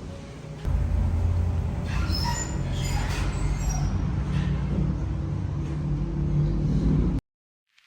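Steady low rumble of a moving vehicle, which cuts off abruptly about seven seconds in.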